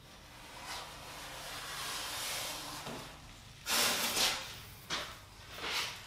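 Glue squeezed from a plastic bottle along the edge of a foam insulation board: a long hiss, then several short scraping rubs as the board is handled.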